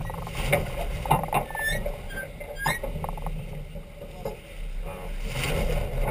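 Farr 40 racing yacht's rigging during a spinnaker drop: scattered knocks and clicks with short squeaks from lines and fittings, over a steady rush of wind and water.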